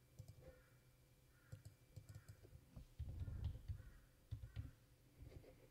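Faint computer keyboard typing and mouse clicks as a dimension value is keyed into a CAD dialog, with a brief low rumble about three seconds in.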